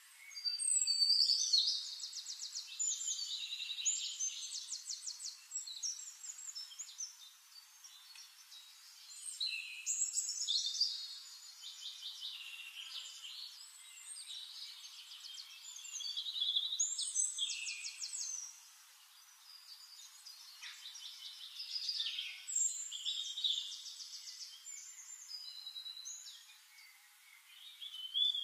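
A songbird singing: bouts of fast trills and chirps, repeated about every six to seven seconds.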